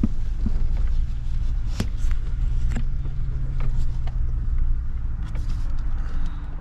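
Car driving with its engine running steadily, a low hum, with scattered knocks and rattles over it.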